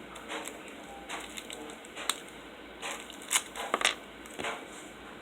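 Toy packaging being opened by hand: irregular crinkling and crackling with sharp clicks, the loudest snaps about two, three and a half and four seconds in.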